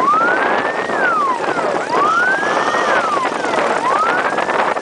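Off-road buggy engine revving up and easing off about every two seconds, its whine rising in pitch and then falling, over a steady rush of wind and rough-track noise.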